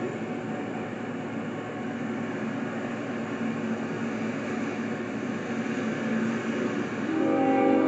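Approaching Union Pacific freight train's diesel locomotives giving a steady, even rumble between horn blasts. About seven seconds in, the locomotive's air horn starts sounding again.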